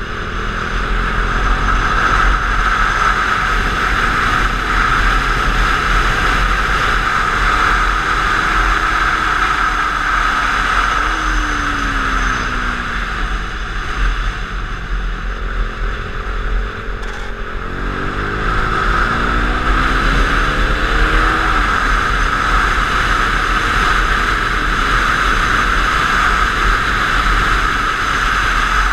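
Wind rushing over a bike-mounted GoPro at track speed, over the single-cylinder engine of a KTM 390 Duke. The engine's pitch climbs twice, peaking about eleven and about twenty-one seconds in, and falls away after each peak as the throttle is rolled off.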